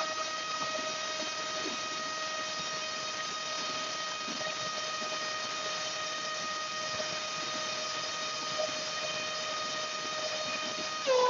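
RTF 2206 2150KV brushless motor spinning an HQ 6x4.5 propeller at high throttle, about 22,000 rpm, driven by a Spider Pro HV 20A ESC: a steady high whine. Near the end the pitch drops as the throttle is stepped back down.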